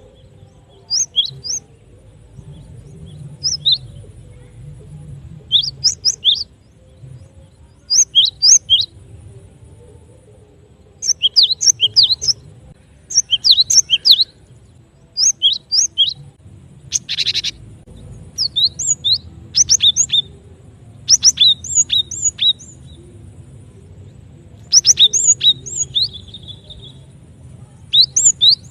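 Cinereous tit (glatik batu) calling: short clusters of high chirps every one to three seconds, with one harsher rattling call about 17 seconds in.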